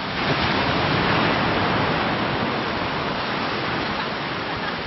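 Wind blowing across the microphone outdoors, a steady rushing noise with low rumbling buffets that swells about a second in and then slowly eases.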